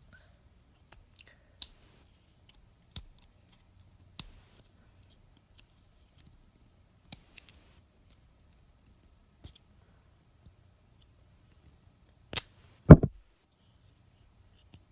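Sharp metal clicks and snaps of folding tools on a Böker Tech Tool 7 and a Victorinox Huntsman II pocketknife being opened and handled, about a dozen scattered clicks. Two louder knocks come near the end, the last with a dull thud.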